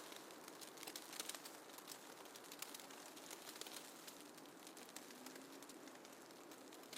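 Faint snowfall ambience: a soft hiss dotted with fine, quick crackling ticks, with a faint low tone briefly about five seconds in.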